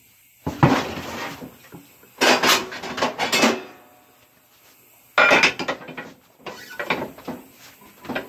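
Handling noises of a tire being set down over a chrome wheel on a tire changer: several separate bursts of rubbing, knocking and clatter. Near the end a metal tire bar is laid across the changer's centre post.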